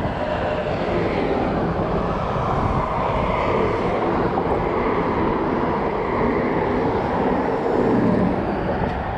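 Steady rush of highway traffic, with cars and trucks passing on the roadway beside the bridge. It swells a little near the end as a pickup truck goes by.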